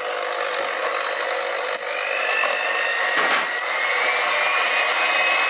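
Electric hand mixer running steadily, its beaters whirring through whipped cream and woodruff gelatin in a bowl. Its motor whine slowly rises in pitch from about two seconds in.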